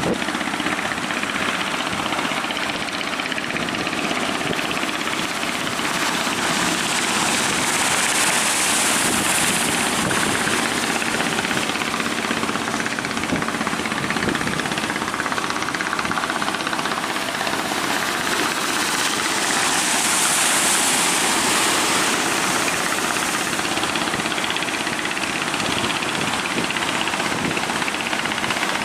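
Fishing boat's engine running steadily under a loud rush of surf, the hiss of breaking waves swelling twice.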